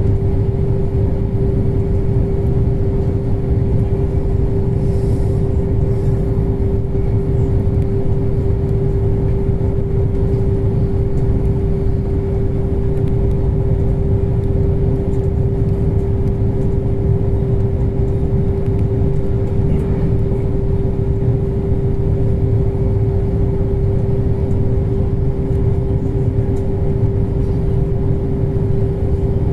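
Steady running rumble of a passenger train in motion, heard from inside the carriage, with a constant mid-pitched hum over it.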